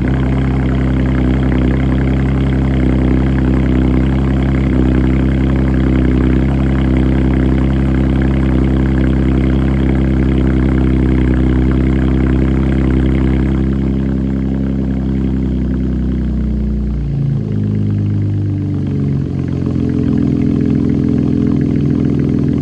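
Straight-piped 2012 Chevrolet Camaro's 3.6-litre V6 with the muffler deleted, idling high on a cold start with a loud, steady exhaust note. About 17 seconds in, the idle steps down, and again a couple of seconds later, as the cold-start fast idle settles.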